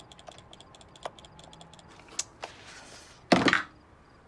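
Typing on a computer keyboard, a few scattered keystrokes that trail off, then a short loud burst of noise about three seconds in.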